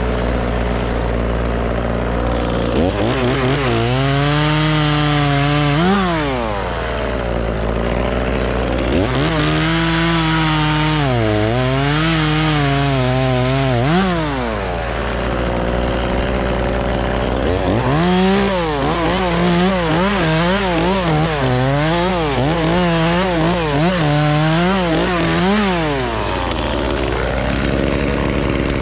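Two-stroke chainsaw revved up in three long spells, cutting into wood: its pitch sags and recovers again and again under load, and it falls back to idle between spells.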